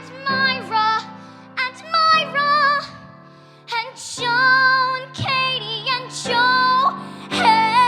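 A solo singer sings the closing phrases of a show tune over instrumental accompaniment. The phrases hold long notes with vibrato, with a short break about three seconds in.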